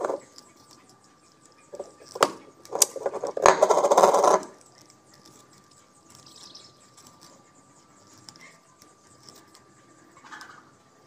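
Handling noise from hands working on a fishing rod's thread-wrapped reel seat: two sharp clicks about two seconds in, then about a second of loud scraping and rustling, then quiet.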